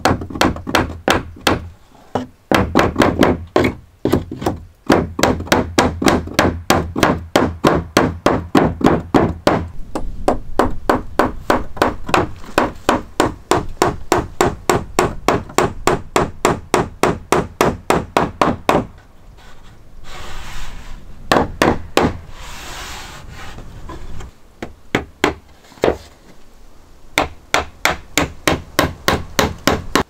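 Steel hammer driving nails into a wooden board on a timber door frame: rapid, even blows, about three a second. About two-thirds of the way in the blows stop for a few seconds of rubbing noise, then a few more blows follow near the end.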